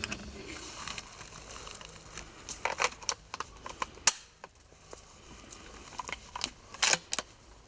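Scattered clicks and knocks of a scoped hunting rifle being handled, with rustling of clothing and dry leaves. There are small clusters of clicks, with a single sharp click about four seconds in and another cluster near the end.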